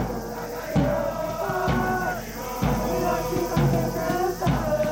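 A soccer cheering section chanting in unison over a steady bass drum beat, about one beat a second.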